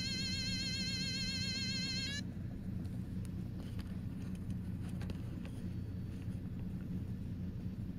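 A jack-o'-lantern novelty pin's electronic sound chip plays an eerie high warbling tone that wavers quickly in pitch, then cuts off abruptly about two seconds in. Afterwards there are faint clicks as the plastic pin is picked up and turned over in the hand.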